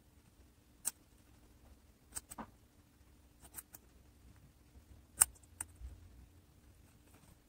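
Guinea pig chewing pieces of vegetable: short, sharp crunching clicks at irregular intervals, the loudest about five seconds in.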